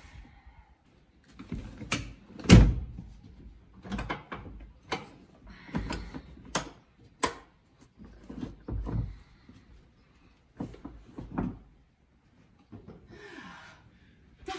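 Clunks, knocks and rattles as removable rear car seats are unlatched and lifted out of the car, with about ten separate knocks and the loudest thud about two and a half seconds in. A short rustle comes near the end.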